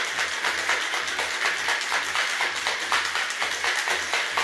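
Ice rattling inside a metal cocktail shaker shaken hard in a quick, steady rhythm, a dense run of clicks and clatter.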